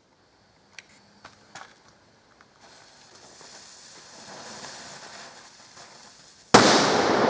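The fuse of a DumBum (Klasek) firecracker, loaded with 5 g of flash powder, hisses and spits sparks for about four seconds after a few faint clicks, then the cracker goes off in one very loud bang near the end that rings on and fades slowly.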